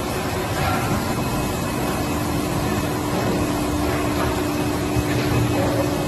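Steady machine hum and noise of a hall full of running Haitian injection molding machines, with a constant low tone over a broad even rumble.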